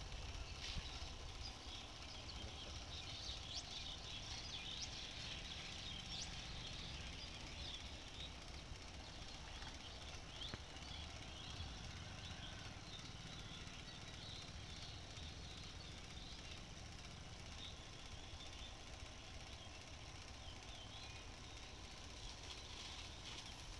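Small solar-panel-powered electric pump running steadily, driving a thin high-pressure water jet from a spray lance, with scattered high chirps over it.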